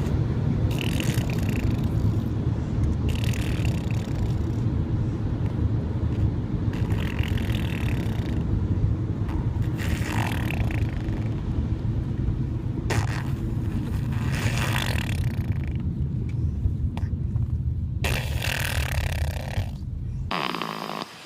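A baby snoring, a rasping snore every two to four seconds, over a steady low rumble that drops away just before the end.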